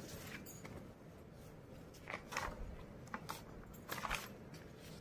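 Paper textbook pages being turned by hand: a few short, faint paper rustles and handling noises about two to four seconds in.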